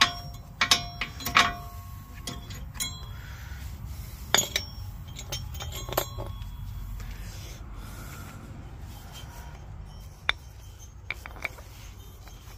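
Sharp metal clinks and clicks of brake pads and their steel clips being pulled from the caliper bracket and handled, several short ringing clinks close together in the first few seconds, then scattered taps and rubbing.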